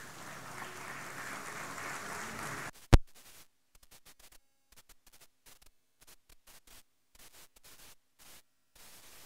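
A hall audience applauding steadily, cut off abruptly under three seconds in by a single loud pop, as from the audio feed being switched. After that there is near silence with faint scattered crackles.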